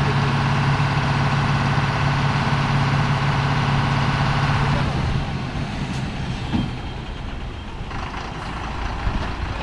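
Heavy lorry's diesel engine running under a heavy load as it struggles through a hairpin bend, a strong steady drone that drops off about five seconds in to a lower, rougher rumble.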